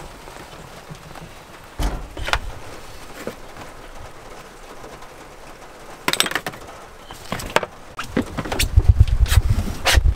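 Knocks and clatter of a dirt bike being handled and strapped down inside a van's load bay. There are a couple of sharp knocks about two seconds in and a cluster around six seconds. Near the end comes a run of thuds with a low rumble.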